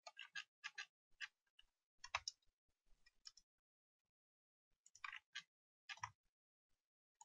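Faint, irregular clicks of a computer mouse and keyboard, coming in small clusters with a pause of about a second and a half in the middle.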